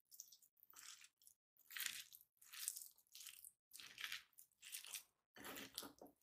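Bare hands mixing boiled mashed potato with chopped onion, green chillies and capsicum in a bowl: faint, soft squishing and crunching, one stroke roughly every three-quarters of a second.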